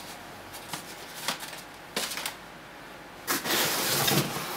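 A few light taps, then about three seconds in, cardboard packaging starts rustling and scraping as a hand grips and lifts a cardboard insert out of the box.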